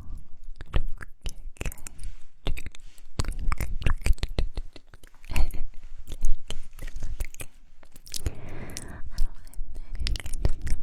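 Close-miked ASMR mouth sounds: a person's lips and tongue making rapid, irregular wet clicks and smacks, with a breathy stretch about eight seconds in.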